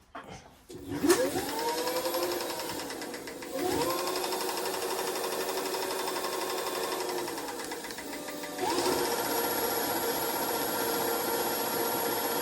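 Electric scooter hub motor spun up under throttle three times, each start a rising whine that levels off into a steady run, with a click at the first start. The wheel is catching on something as it turns, making a rubbing noise.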